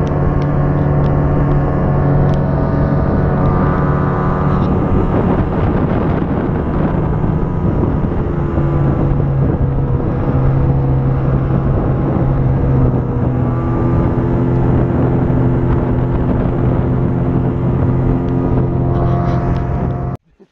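Snowmobile engine running steadily under way, its note dipping and rising a little with the throttle; it cuts off abruptly near the end.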